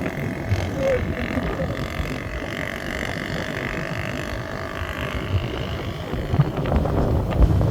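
A vehicle running along, with a steady rumble and a few knocks near the end.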